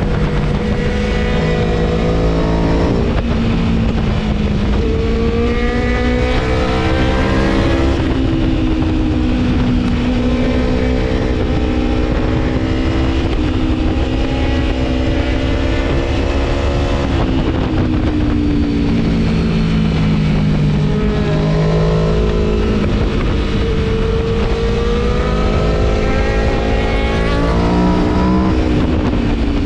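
Gabro Stage 3 tuned Aprilia Tuono V4 motorcycle engine under hard riding, its pitch climbing under acceleration and dropping off again several times, with a sudden drop about eight seconds in.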